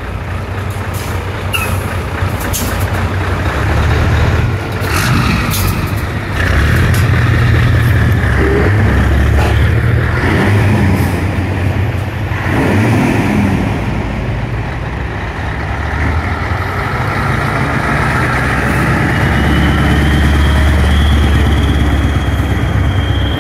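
Diesel engines of several big Scania trucks running together, idling and revved now and then, with short air hisses in the first few seconds.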